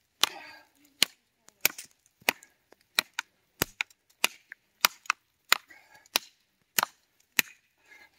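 Cold Steel Jimislash Competition Chopper, a large chopping knife, striking a post oak branch laid on a stump: about a dozen sharp chops at a steady pace, one every two-thirds of a second or so.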